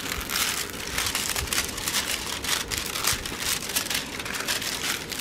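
Clear plastic wrapping on a diamond painting canvas crinkling continuously as hands rub and lift it, a dense run of irregular crackles.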